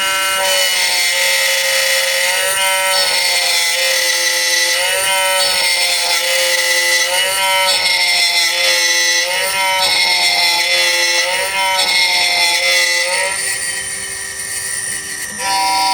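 Miracle A7 Plus computerized key cutting machine cutting a key: the cutter spindle runs with a steady whine over a high hiss, while the motors moving the key and cutter give a second whine that glides up and down in pitch every second or two.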